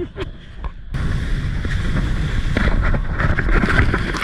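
Wind buffeting the microphone and water rushing as a wakeboarder is towed by the cable, with a few sharp clicks first and the rushing noise starting abruptly about a second in.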